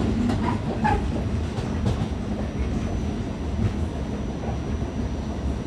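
Inside a moving NYC Subway R46 car: a steady low rumble of wheels on rail, with a few clacks in the first two seconds. A faint thin high tone comes in about two seconds in.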